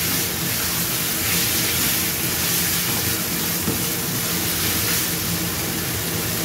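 Goat meat in a thick spice paste sizzling with a steady hiss in a frying pan as it is stirred with a spatula.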